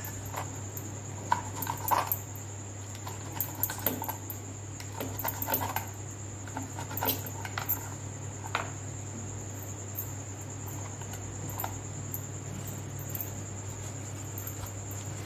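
Crisp fried pooris crackling and rustling as they are folded and cut into squares against a notched metal cutter on a wooden board: scattered crackles and clicks, thickest in the first half, with a few near the end. A steady low hum runs underneath.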